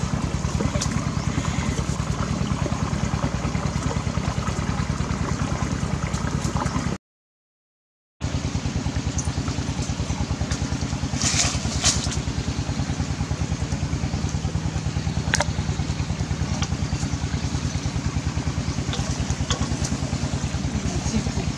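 A small motor running steadily with a rapid, even pulse, cut by about a second of dead silence around seven seconds in. A few light knocks and a short rustle come over it around eleven seconds in and again near fifteen seconds.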